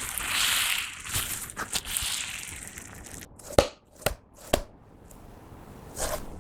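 Slime loaded with glitter and nail stones being squished and stretched by hand: a wet crackling for about three seconds, then three sharp pops about half a second apart.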